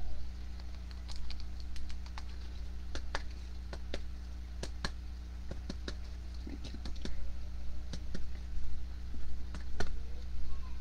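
Light clicks and taps at uneven intervals, a few a second at most, over a steady low electrical hum.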